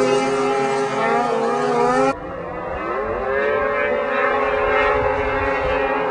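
Snowmobile engine running at high revs with a steady whine, cut off abruptly about two seconds in. Another snowmobile engine then revs up, its pitch rising over about a second, and holds steady at high revs.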